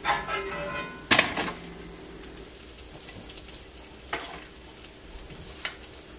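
Food sizzling in a frying pan, with a sharp clatter about a second in and a few light clicks of a utensil against a plate.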